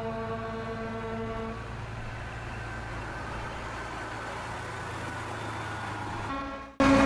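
Car-transporter truck running with a steady low hum, with a held whine over it that stops about a second and a half in. The hum breaks off near the end, giving way to a louder vehicle sound.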